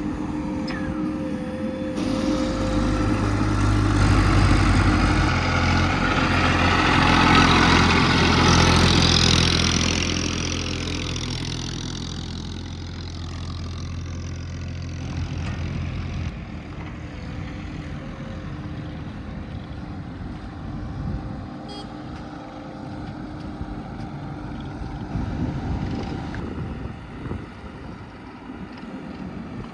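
Diesel engine of earthmoving machinery working under load. It swells about two seconds in, with a rushing noise peaking for a few seconds, then settles to a quieter, steady run for the second half.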